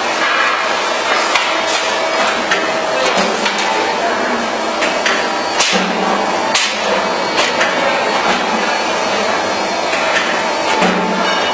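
Automatic sandpaper disc cutting machine running, its press stamping discs out of the abrasive paper with repeated sharp knocks, about one or two a second, over a steady machine hum.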